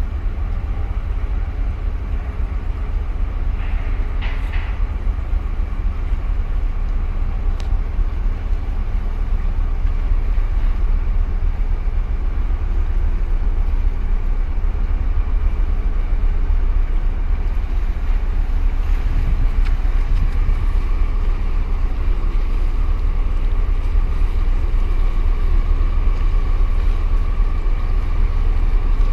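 Steady low rumble of a harbour tugboat's diesel engines as the tug pushes against a container ship's hull. A faint whine grows stronger from about two-thirds of the way in, with a brief hiss about four seconds in.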